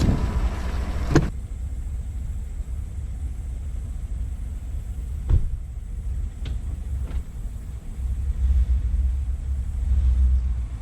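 Truck engine running with a low rumble. A sharp thump about a second in, after which the sound is muffled; the rumble grows louder near the end.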